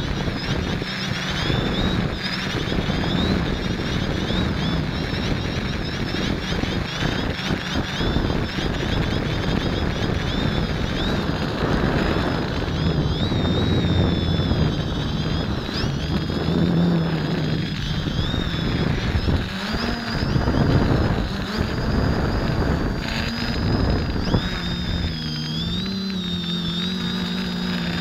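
Quadcopter's electric motors and propellers heard from its onboard camera: a steady buzz with several whining tones that drift up and down as the throttle changes, over a rush of wind and prop wash.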